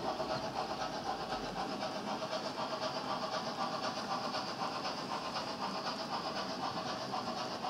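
HO-scale model tank wagons rolling past on metal track: a steady rattling rumble of many small metal wheels, with dense, rapid clicking.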